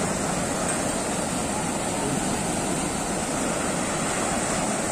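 Fast, turbulent whitewater rushing steadily down an artificial slalom canoe channel, a constant even rush of water from a strong current.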